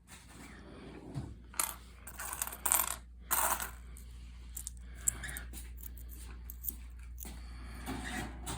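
Loose pennies clinking against one another as they are handled and sorted, with a busy run of jingling clinks in the first few seconds and a few scattered clinks later.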